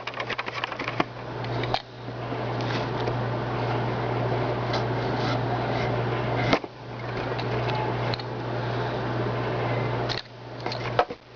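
Steady fan-like hum and hiss, cutting out briefly three times. A run of light clicks comes in the first second and a few sharp ticks near the end.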